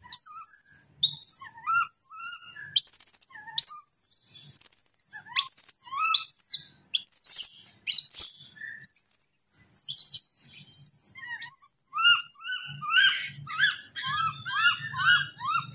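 Baby monkeys screaming: a string of high-pitched squealing calls that sweep down in pitch, turning near the end into a fast run of short rising chirps, about three a second.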